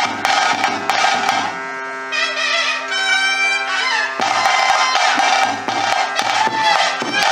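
Bhuta kola ritual music of drums and a curved brass horn. About one and a half seconds in the drumming drops out for some two and a half seconds, leaving held wind tones with a wavering melody above them, then the drums come back in.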